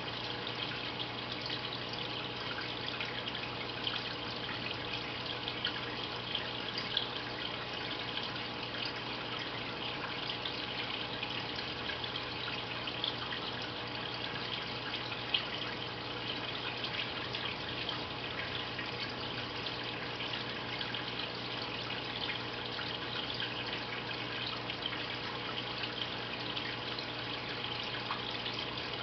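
Aquarium filter water splashing and trickling steadily into the tank, with a low steady hum from the filter pump.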